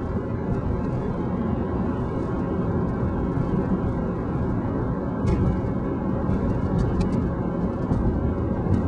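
Steady low road and engine rumble of a moving car, heard from inside the cabin, with a few faint clicks.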